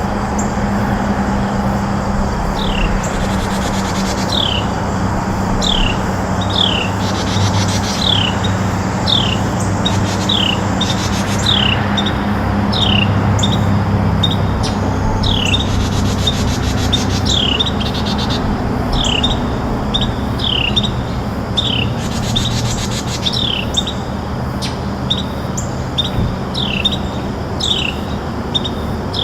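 A bird calling a short, falling chirp over and over, roughly once a second, over a steady low hum and hiss.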